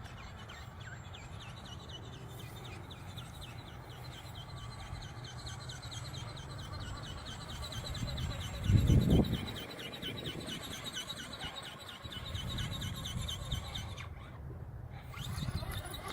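Wind buffeting the microphone, with one strong gust about nine seconds in, over a fast, steady run of high chirps that pauses briefly near the end.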